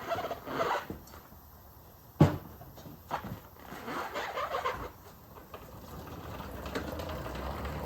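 Yamaha Raptor 660 quad being bump-started: a sharp clunk about two seconds in, then a low rumble that builds steadily toward the end.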